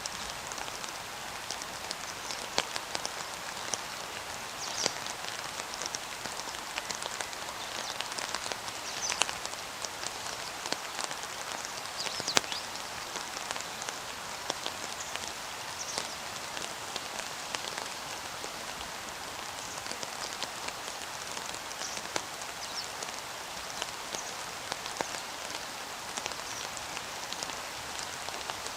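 Steady outdoor hiss, like rain patter, with many scattered faint ticks, and now and then a short high chirp from distant small birds.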